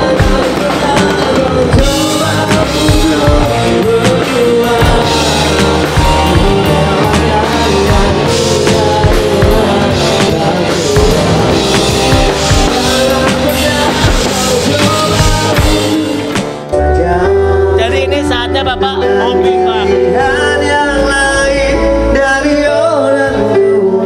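Live pop band playing, with drums, electric guitar, bass guitar, keyboard and a male lead singer. About two-thirds through the drums drop out, and the bass, keys and voice carry on.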